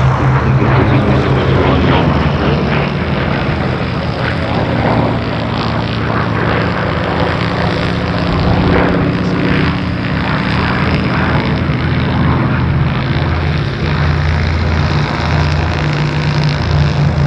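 Grumman F8F Bearcat's big radial engine running at display power as the fighter manoeuvres overhead, a loud, continuous propeller drone with a steady low tone underneath.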